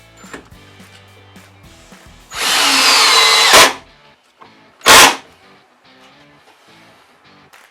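Ryobi ONE+ 18 V cordless drill/driver running at full trigger for about a second and a half, its pitch dropping as it stops. About a second later it gives one short burst. Faint background music plays throughout.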